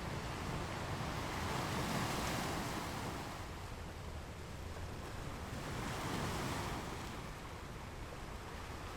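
Ocean waves washing onto the shore, two swells of surf that build and fall away, about two seconds in and again about six seconds in.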